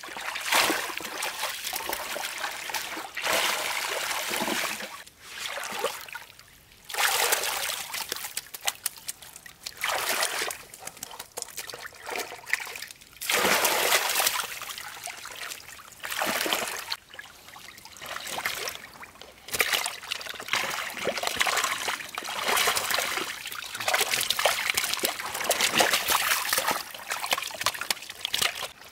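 Water splashing and pouring in repeated bursts, each lasting one to three seconds, with short pauses between.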